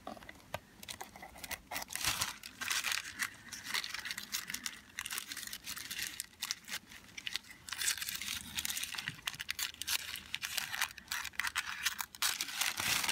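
Scissors cutting through thin tissue paper, the tissue crinkling and rustling as it is snipped and lifted away, in spells of quick crackly snips with short pauses.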